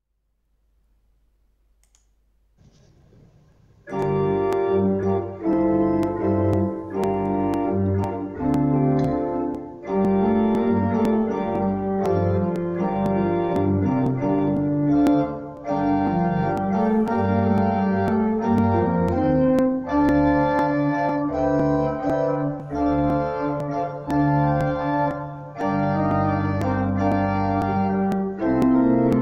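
Organ music entering about four seconds in after near silence: a slow piece of held chords, phrase by phrase with short breaks between phrases.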